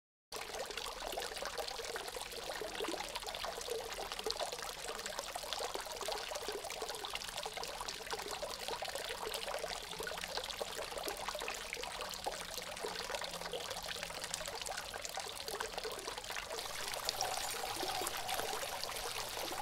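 A steady trickling, pouring-liquid sound that starts suddenly just after the beginning and keeps an even, hissing flow throughout.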